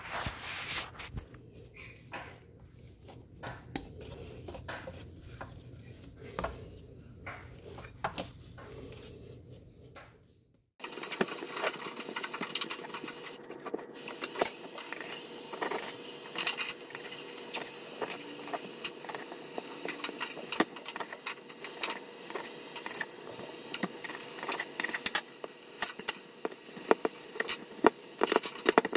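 Kitchen handling noises of pie-crust dough being worked: a low rumble with scattered clicks at first, then, about a third of the way in, many light taps and ticks of hands and a knife on a wooden cutting board as the dough log is rolled and cut into pieces.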